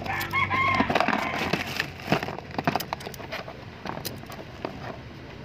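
A chicken calling near the start, two short arched notes, over scattered clicks and knocks.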